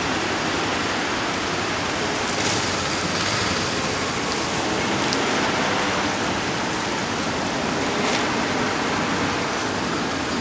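Steady road traffic noise as police vans and then cars drive past close by, tyres and engines on the road making an even rushing sound.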